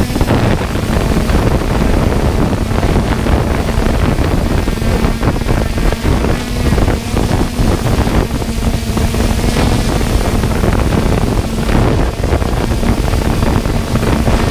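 3DR Solo quadcopter's electric motors and propellers running with a steady hum, recorded by the camera mounted on the drone, with wind buffeting the microphone.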